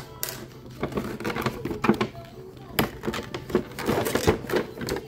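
Clear plastic blister packaging and plastic wrap crinkling and clicking as hands handle plastic toy kitchen pieces, a quick irregular run of sharp crackles and taps.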